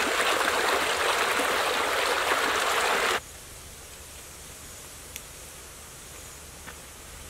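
Shallow stream running over rocks, a steady loud rush of water that cuts off suddenly about three seconds in, leaving a much quieter outdoor background with a few faint ticks.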